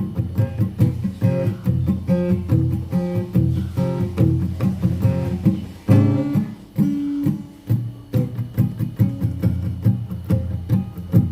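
Instrumental break in a song: an acoustic guitar picking notes in a steady rhythm, with a louder, fuller chord about six seconds in.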